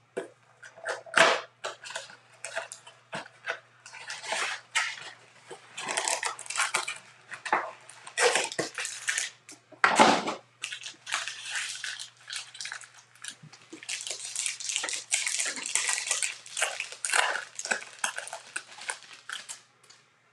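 Cardboard blaster box and foil wrappers of 2020 Bowman baseball card packs being handled and torn open: irregular crinkling, rustling and ripping in bursts, with cards shuffled near the end.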